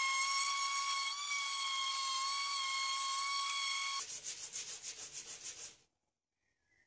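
Electric random orbit sander running on spotted gum hardwood with a steady high whine, which cuts off abruptly about four seconds in. Then a hand-held sanding stick rasps in quick back-and-forth strokes over the box joint fingers for about two seconds before stopping.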